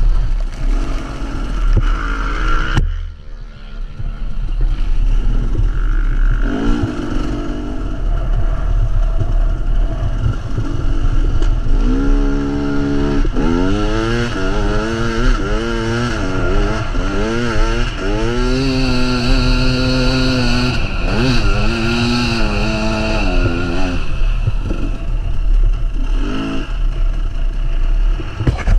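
Off-road motorcycle engine under load, revving up and down again and again as the rider works through the course, with a heavy low rumble beneath it.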